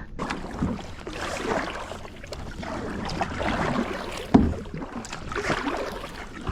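Kayak being paddled: repeated paddle strokes in the water, rising and fading every second or two, with one sharp knock about four seconds in.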